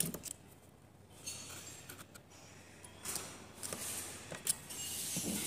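A thin metal pick scraping and clicking against the ball nut of a steering box: a few sharp ticks near the start, then a longer scratchy scraping from about halfway through with another click near the end.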